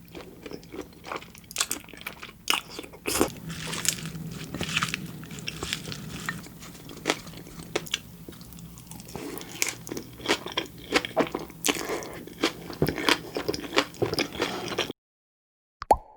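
Close-miked chewing and biting, with many small crisp crunches and pops of food in the mouth. Near the end the sound cuts out and a single sharp plop follows.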